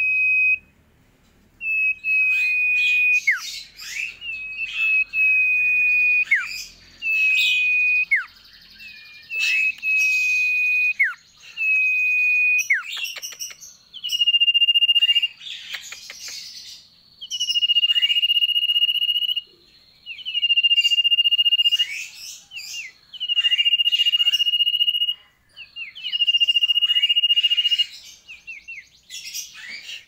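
Common iora (cipoh/sirtu) singing: a series of long, level, high whistles, each held for about a second and ending in a quick downward slur, with short chirps in between. Toward the end the whistles are held a little longer and pitched slightly higher.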